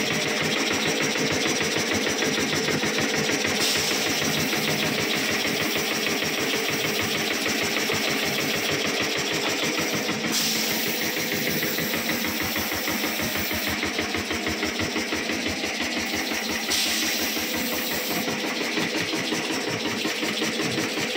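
An engine running steadily with a fast, even pulse and a constant hiss over it.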